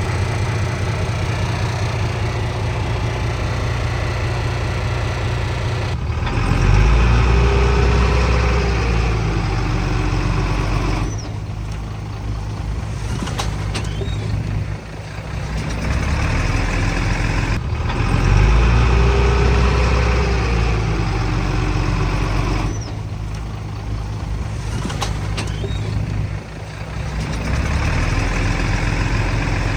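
Diesel engines of heavy earthmoving machinery running steadily. Twice the engine sound swells louder for a few seconds, then eases back.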